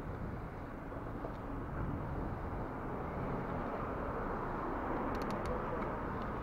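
Steady rumble of wind and rolling noise from riding a bicycle, picked up by an action camera's built-in microphone, with a short run of clicks about five seconds in.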